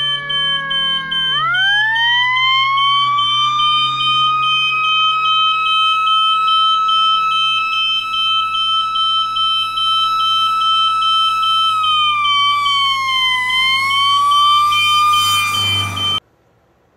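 A smoke alarm beeping rapidly, high and piercing, over a fire-engine siren that winds up into a steady wail, dips briefly and rises again, with a low rumble underneath. Everything cuts off suddenly about a second before the end.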